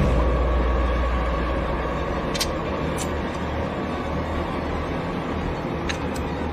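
Deep low rumble that sets in sharply, then slowly fades, with a few faint clicks over it: a film sound-design drone.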